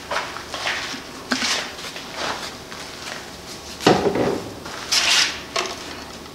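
Small plastic bottles and caps handled and set down on a metal workbench: scattered light knocks, clicks and rustles, the loudest about four seconds in.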